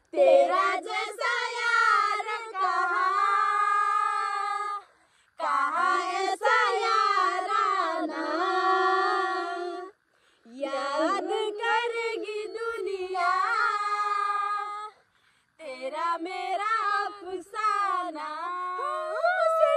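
A high voice singing a melody in four phrases of about four to five seconds each, with short silent breaks between them.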